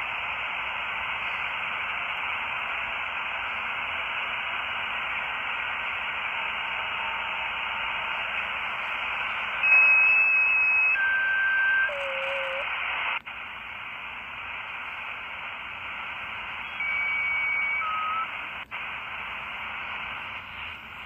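Shortwave static hiss from a 4732 mini radio tuned to the 15-metre band, with signals too weak to be heard. About halfway through, several short steady whistles at different pitches come and go, and twice the hiss cuts out for an instant.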